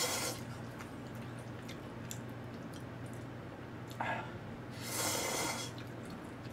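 A person slurping ramen: a slurp of broth right at the start, then a short sharp suck about four seconds in and a longer noodle slurp around five seconds, with soft wet chewing between.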